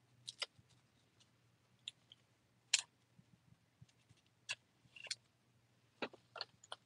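Faint, scattered clicks and crinkles of stiff clear plastic as a chrome baseball card is handled and slid into a plastic sleeve and toploader, the sharpest click about three seconds in.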